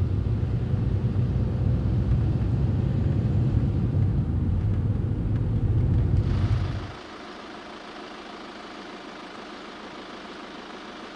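Steady low rumble of road and engine noise inside a moving Volkswagen Passat's cabin. About seven seconds in it cuts off suddenly, leaving a much quieter, even background hiss.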